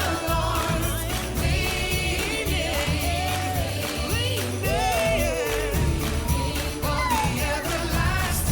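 Singing over a music backing track with a steady beat.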